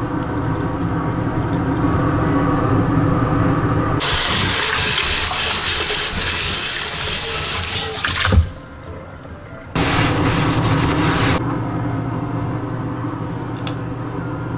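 Tap water running hard into a cast-iron skillet in a stainless steel sink as the pan is rinsed: two spells, the first about four seconds, the second about two, with a sharp knock between them. A steady low hum sits under the rest.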